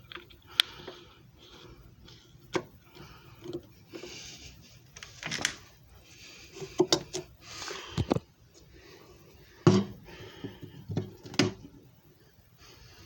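Handling noises: scattered clicks and knocks with short rustles, as objects are moved about and set down. No motor is running.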